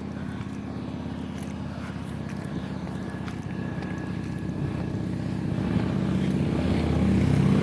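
Car engine running as the car pulls away, getting steadily louder and rising in pitch toward the end as it accelerates, heard from inside the car.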